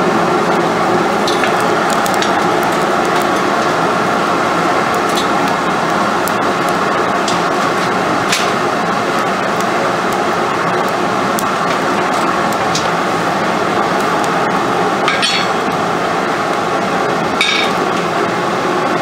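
Blacksmith's coal forge burning dry whole feed corn under its air blast: a loud, steady rush of air and fire. A few sharp ticks stand out, twice near the end.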